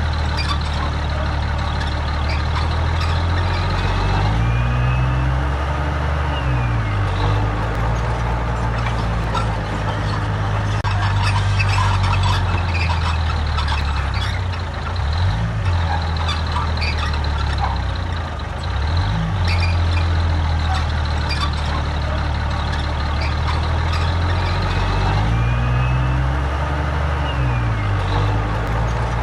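Heavy diesel earthmoving machinery running continuously. The engine note drops and rises again several times as it is worked, and a few brief high whines glide over it.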